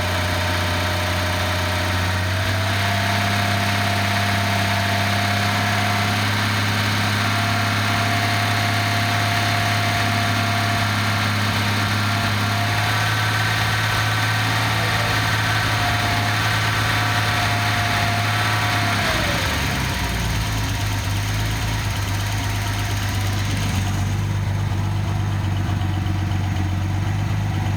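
Datsun 280ZX Turbo's 2.8-litre turbocharged straight-six (L28ET) idling steadily on an engine test stand. A steady whine runs over the engine and, about two-thirds of the way through, glides down in pitch and drops away while the idle carries on.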